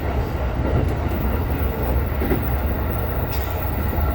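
Cabin running noise of a JR East E233-3000 series electric train: a steady low rumble from the wheels and running gear, with a faint click about three seconds in.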